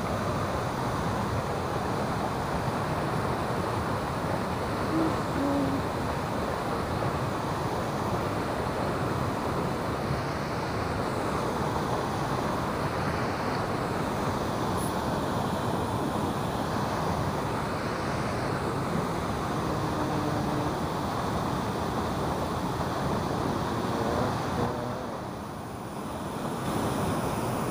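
Steady rush of turbulent river water churning out below the open gates of a weir, dipping briefly in level near the end.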